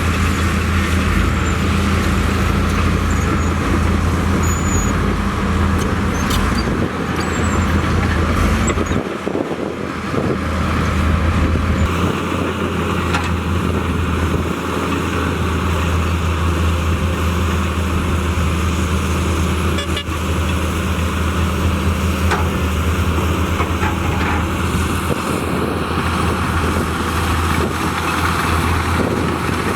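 Diesel engine of heavy earthmoving machinery running steadily under load, its low hum dipping briefly about nine seconds in, with a few light clanks.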